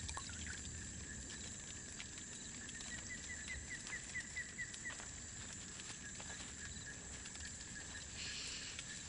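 Faint steady hiss with a run of about eight quick, high chirps from a small animal, starting about three seconds in and lasting about two seconds.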